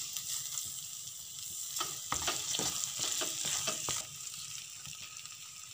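Spatula stirring and scraping grated bottle-gourd halwa around a kadhai, over a steady sizzle of the mixture roasting in ghee on a slow flame; the scrapes come thickest a couple of seconds in. The halwa is at its final roasting stage, thick and pulling away from the sides of the pan.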